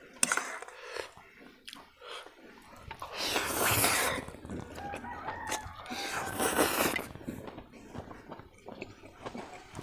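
Instant noodles slurped up from a fork, two loud hissing slurps about three and six seconds in, between light clicks of a steel fork and spoon against the metal plate.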